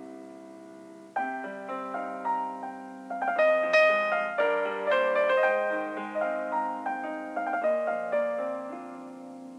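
Background piano music: a melody of single struck notes over sustained chords, a new phrase coming in about a second in and growing louder.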